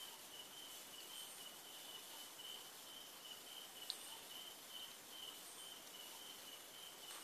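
Faint steady hiss with a high chirp pulsing about twice a second, like a cricket; one soft click about four seconds in.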